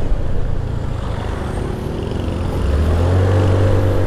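A vehicle engine running, then speeding up about two and a half seconds in, its hum rising and getting louder.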